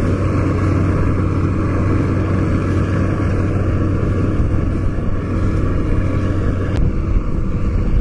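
Kubota DC70 rice combine harvester's diesel engine running steadily while harvesting, a constant low hum with threshing noise.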